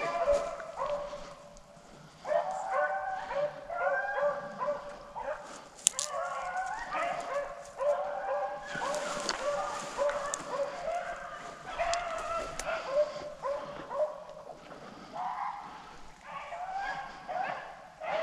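A pack of rabbit hounds baying on a rabbit's scent trail, many short yelping barks overlapping one another, with a brief lull about two seconds in.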